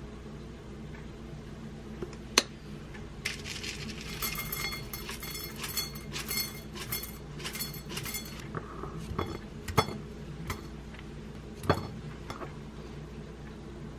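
Cinnamon granola shaken out of a glass jar into a bowl, the clusters rattling and clinking against the glass in a run of quick bursts for about five seconds. A single sharp click comes before it, and a few light knocks follow near the end.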